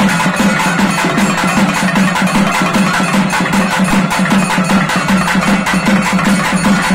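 Fast, steady drumming from a traditional Tamil temple-festival drum ensemble (melam), with dense, evenly spaced strokes and no let-up.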